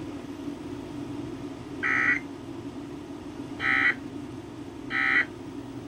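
Three short bursts of Emergency Alert System end-of-message data tones, the harsh digital buzz of the EAS code, about a second or so apart, over a steady low hum. They mark the end of the severe thunderstorm warning broadcast.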